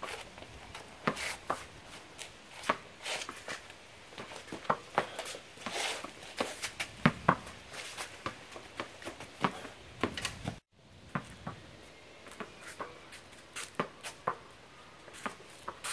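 Tennis ball struck by junior tennis rackets and bouncing on a concrete patio: an irregular run of sharp pops and knocks, with a few longer scraping sounds between them. The sound breaks off for an instant about two-thirds of the way through.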